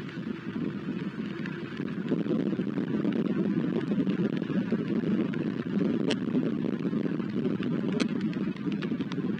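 Steady rain and wind noise on an outdoor nest-cam microphone, with a few sharp ticks about 6 and 8 seconds in and near the end.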